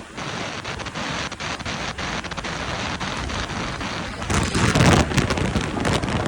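Wind rushing and buffeting over the microphone of a moving motorcycle, getting louder about four seconds in.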